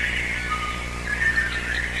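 Several birds chirping and singing, short chirps and whistled notes overlapping, over a steady low hum.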